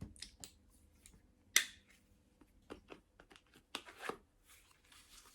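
Hands handling a multi-tool sheath: scattered light clicks and rustles, with one louder sharp click about a second and a half in.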